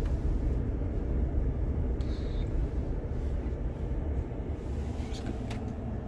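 Ford F-150 pickup heard from inside the cab while driving slowly: a steady low engine and road rumble.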